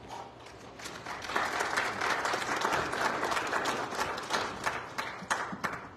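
Congregation applauding: the clapping builds about a second in, holds, and dies away just before the end.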